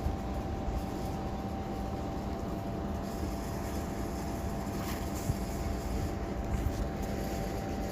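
Lexus LX570's 5.7-litre V8 idling steadily, running again now that the immobilizer fault that stopped it starting has been cleared.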